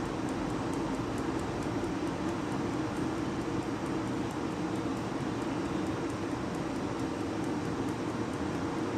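Air fryer running, its fan giving a steady hum while it heats.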